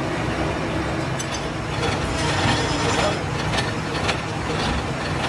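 Machine tool running and cutting a stack of steel sprocket blanks on an arbor, flooded with coolant: a steady mechanical drone with faint, irregular clicks and ticks.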